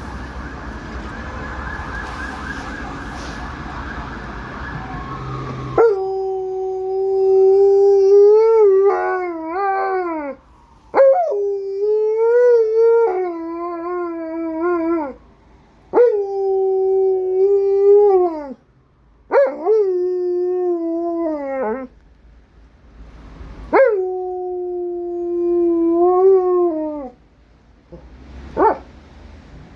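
Alaskan malamute howling: about six long, wavering howls of a few seconds each with short breaks between, the last one brief. They start about six seconds in, after a steady rushing noise.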